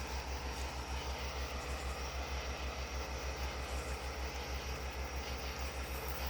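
An engine idling: a steady low throb pulsing about five times a second under a faint hiss.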